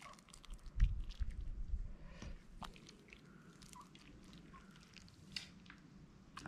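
Plastic ladle scooping chicken noodle soup from a stainless steel pot onto plastic plates: soft wet slopping with scattered light clicks of ladle on pot and plate. A low rumble, the loudest sound, comes about a second in.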